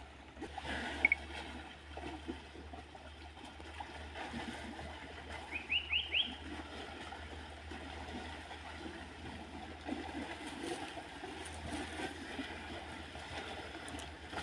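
Muddy river water splashing and trickling around wading elephants, over a low steady rumble. About six seconds in come four quick, short rising chirps, like a small bird calling.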